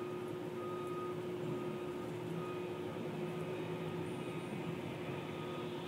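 A railroad track maintenance machine runs steadily as it creeps along the rails, giving an even engine hum with one strong steady tone. A fainter high whine comes and goes.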